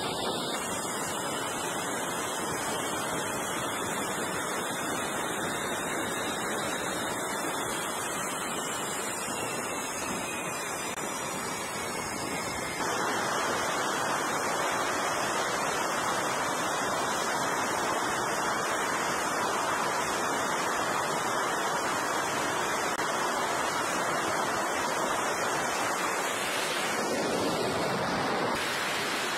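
Jet aircraft engines running on a carrier flight deck: a steady rushing noise with a faint turbine whine that bends up and down in pitch, getting louder about thirteen seconds in.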